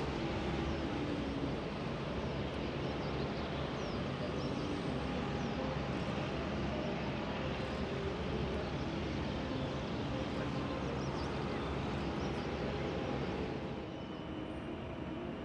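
Airbus A350-900's Rolls-Royce Trent XWB jet engines running at taxi power: a steady jet rumble and hiss with faint whining tones, easing off slightly near the end.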